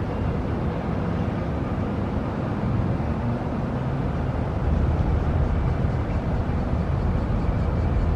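Large ferry's engines and propulsion running with a steady low rumble, a little louder about four and a half seconds in.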